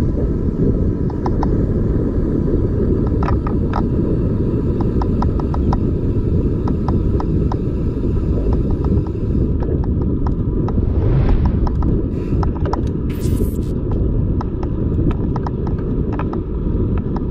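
Wind buffeting a handlebar-mounted camera's microphone on a moving mountain bike, a steady low rumble mixed with tyre noise from the paved path. Scattered light clicks and rattles from the bike run through it.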